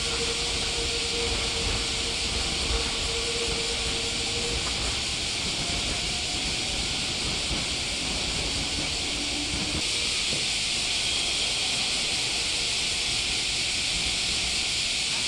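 Steady high hiss with a low rumble beneath it, at a railway platform around trains; a faint steady hum sounds in the first few seconds and then fades.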